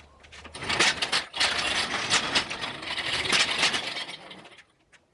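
Steel parts of a cherry picker (engine hoist) being fitted together: a dense run of metal scraping and clattering that lasts about four seconds and then dies away.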